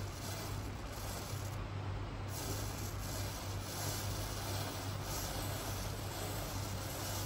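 Matchsticks standing in a row catching fire one after another, a steady fizzing hiss of match heads igniting, with a steady low hum underneath.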